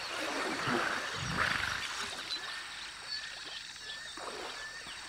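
African elephant in water, with a low rumbling call and noisy swell about a second in, over frequent short bird chirps.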